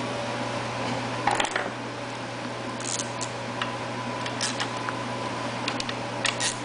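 A steady low hum with a few light clicks and taps: a cluster about a second in, then single ones near three, four and a half and six seconds in.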